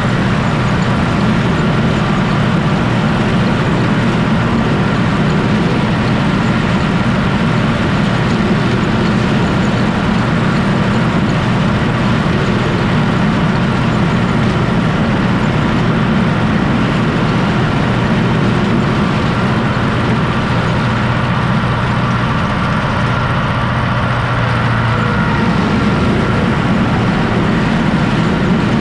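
UTB Universal 650 tractor's diesel engine running steadily under load, driving a PTO-driven Zmaj 223 corn picker as it picks standing corn.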